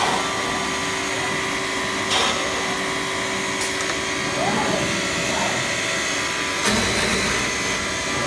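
A PTP CNC router running with a steady machine hum and whine, broken by three short knocks, the last one toward the end, after which the low rumble gets louder.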